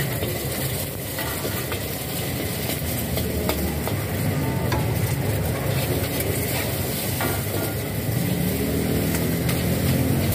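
Egg sizzling in hot oil in a steel wok while a metal spatula scrapes and taps the pan as the egg is broken up and stirred, with a few sharp clicks. A gas wok burner runs underneath as a steady low rumble.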